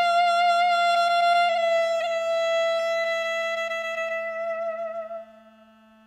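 Background music: a reed woodwind holds one long, slightly wavering note that fades out about five seconds in, over a low steady drone.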